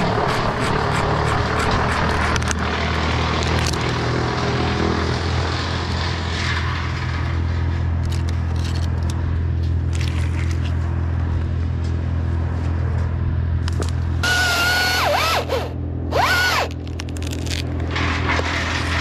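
An engine running steadily at low speed, with rubbing and scraping over it for the first few seconds, and two short high squeals that dip and rise in pitch about three-quarters of the way through.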